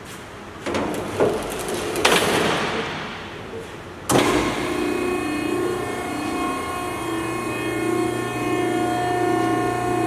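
Steel mesh gate of a Marathon 4830 HD vertical cardboard baler pulled down with a few clanks and a sliding rattle. About four seconds in, the baler's hydraulic power unit starts suddenly and runs steadily with a hum and a steady whine.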